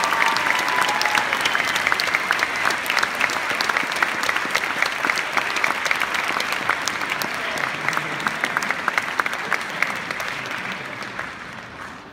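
Audience applauding: a dense clatter of many hands clapping that thins out and fades near the end.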